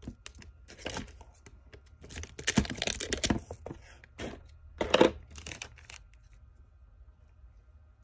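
Clear Scotch tape being pulled off its roll and torn off, then pressed and smoothed onto paper, with paper rustling. The loudest pulling and tearing comes about two and a half to three and a half seconds in, with another short burst about five seconds in.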